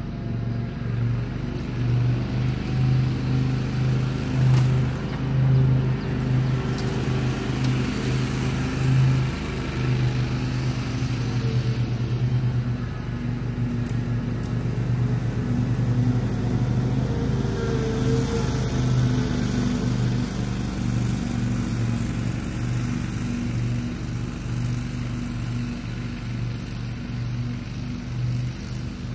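Grasshopper Model 612 riding mower's engine running steadily while mowing, its level rising and falling a little.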